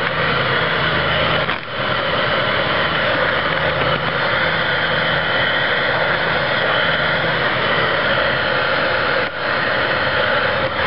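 Handheld hair dryer running on high, a steady blowing rush with a low motor hum, aimed at carbon fiber vinyl film to heat it. The level dips briefly twice, about a second and a half in and near the end.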